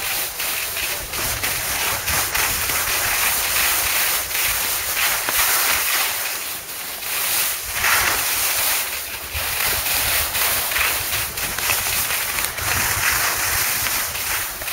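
Skis sliding over packed snow, a continuous hissing scrape that rises and falls, with wind buffeting the microphone.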